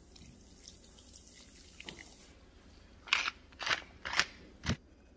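Beer trickling in a thin stream onto meat in a glass baking dish, faint. About three seconds in come four short, sharp crunching noises about half a second apart, the loudest sounds here.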